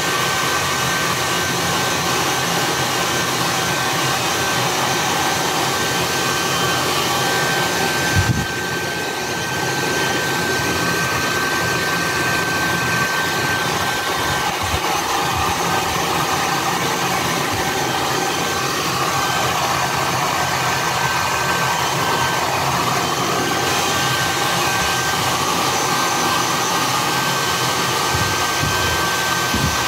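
Handheld hair dryer running steadily: a rush of air with a steady high whine. A knock about eight seconds in, and the dryer is briefly quieter just after it.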